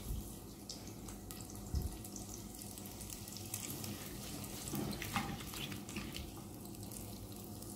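Sliced onions sizzling steadily in hot ghee in a clay pot, with a silicone spatula stirring through them and giving a few faint scrapes and taps.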